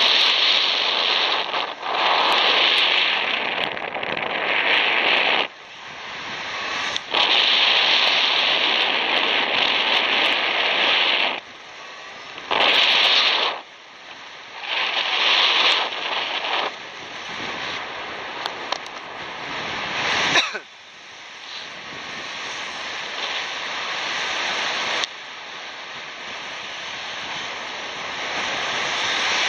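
Airflow rushing over the microphone in paragliding flight. It swells and fades in gusts and drops away suddenly several times.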